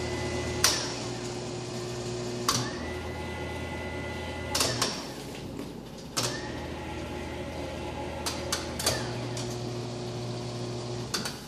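An electric range's oven control knob is turned and clicked through its settings several times. A low electrical hum cuts in and out with the clicks as he tries to get the oven element to come on.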